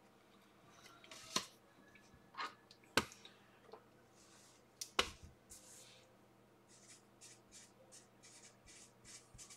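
Paper envelopes and cards handled on a tabletop: a few sharp taps and clicks, then a run of soft rustles.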